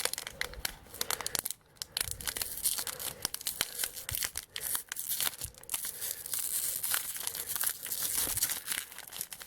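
Trading card pack wrapper being torn open and crinkled by hand: a dense run of crackling rips and rustles, with a brief pause about one and a half seconds in.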